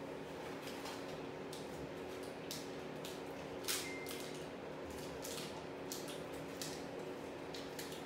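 Plastic candy-bar wrappers crinkling and rustling as they are handled and pulled from a cardboard snack box: short scattered crackles, with one sharper crackle about three and a half seconds in. A faint steady hum runs underneath.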